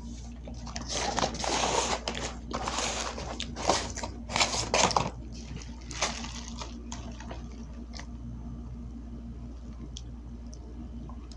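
A person eating a burger close to the microphone: chewing and crackly rustling bursts through the first five seconds, a sharp click about six seconds in, then quieter.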